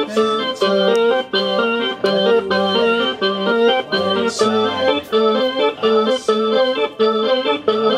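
Live rock band playing through amplifiers, a Farfisa combo organ's chords to the fore over steady drum beats about twice a second.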